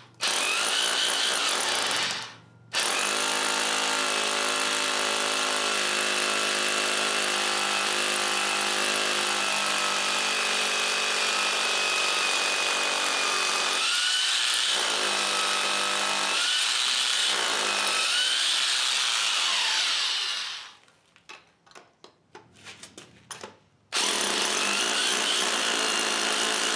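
Corded hammer drill boring into a concrete floor through the bolt holes in a steel anvil stand's foot plate, making holes for 3/8-inch wedge anchors. It runs briefly, stops for a moment, then runs steadily for about eighteen seconds, its pitch wavering under load. It stops with a few short knocks, then starts drilling again near the end.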